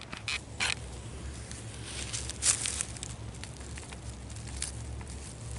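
Scattered rustles and crackles of dry grass and loose soil being worked by hand while digging a coin out of the ground, over a low steady rumble.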